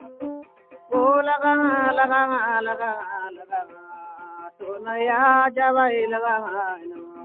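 A song: plucked string notes, then a singer holding two long, wavering melodic phrases, with the plucked notes returning between and after them.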